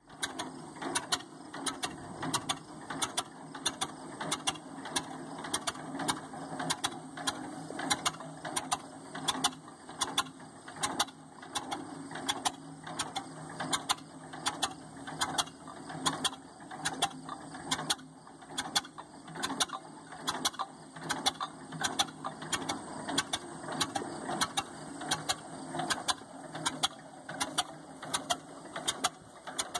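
1947 John Deere H's two-cylinder engine at low idle, putt-putting in a steady beat of sharp pops while it pulls the tractor slowly in second gear.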